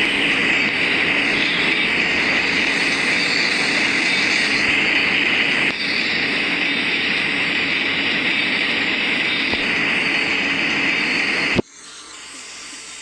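Philippine National Railways train running, a steady loud rush of rail noise with a strong high hiss, which cuts off abruptly about eleven and a half seconds in to a much quieter background.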